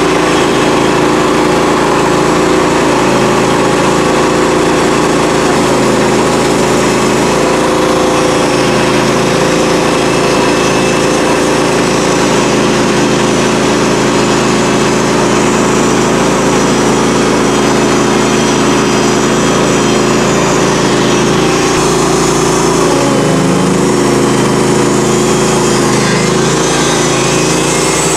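The engine of a Norwood HD38 portable band sawmill running at full throttle as the band blade cuts a hard walnut stump log. The engine's pitch wavers and dips briefly a little over twenty seconds in.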